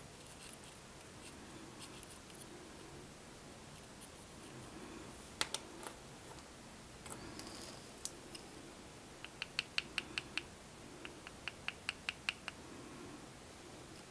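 Metal palette knife scraping and tapping against a small plastic half pan as paint is pressed into it: a few scattered clicks around the middle, then two quick runs of light clicks, about six a second, in the second half.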